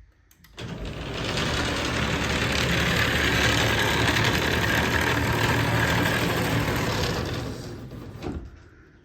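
Genie Excelerator screw-drive garage door opener running as it raises the door: a steady motor-and-drive rumble that starts about half a second in. It tapers off near the end and stops with a brief knock.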